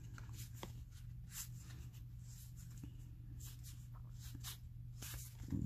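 Cardboard trading cards sliding and flicking against each other as a stack is thumbed through by hand: a string of soft, papery brushes over a low steady hum, with a low thump just before the end.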